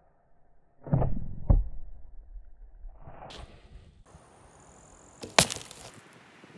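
A Monarq Korean traditional bow being shot at targets: two heavy thumps about a second in, half a second apart, and a single sharp crack near the end. These are bowstring releases and arrows striking targets.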